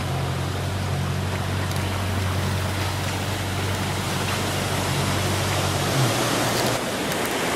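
A boat's engine humming steadily under a wash of surf breaking on rocks and wind noise; the engine hum drops out about seven seconds in, leaving the rushing noise.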